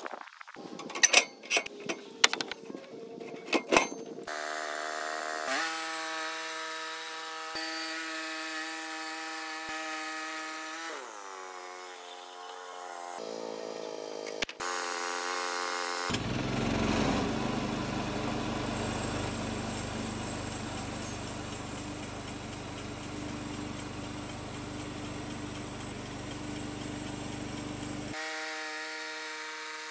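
Woodland Mills HM130MAX portable bandsaw mill. A few sharp knocks and clunks come first, then the mill's engine runs steadily. About halfway in, a longer stretch of the band blade cutting through an old pole gives a rougher, noisier sound, and the steady engine note returns near the end.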